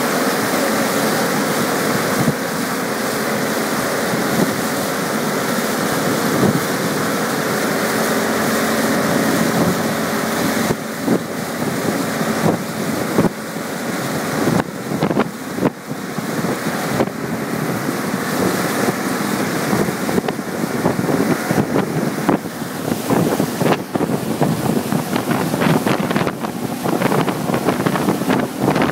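Centurion Falcon Barefoot ski boat's engine running under way, with the rush of its churning wake and wind buffeting the microphone, the buffeting choppier from about ten seconds in.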